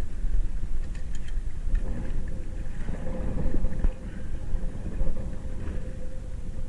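Sailboat's engine running steadily under a heavy, uneven rumble of wind on the microphone.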